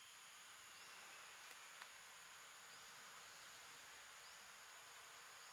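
Near silence: faint outdoor ambience, a steady hiss with a few faint, short, rising high chirps and one small click about two seconds in.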